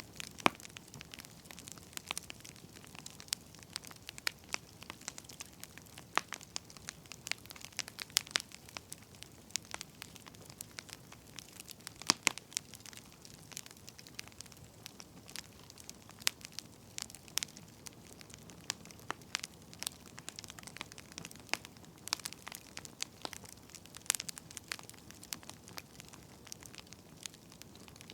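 Burning firewood crackling: irregular sharp pops and snaps, several a second, over a faint steady hiss.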